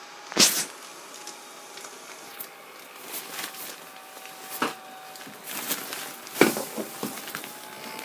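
Small battery-powered blower fan of an inflatable reindeer running with a steady whine as the figure fills with air. The nylon fabric rustles and crinkles sharply several times as it is handled, loudest about six and a half seconds in.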